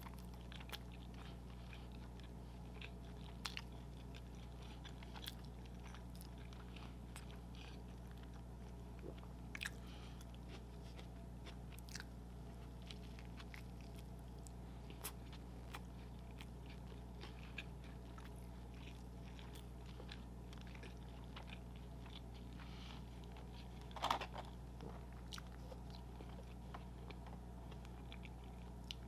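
Close-miked chewing and biting of fast food, with scattered small crunches and mouth clicks over a steady low hum; the loudest crunch comes about five seconds before the end.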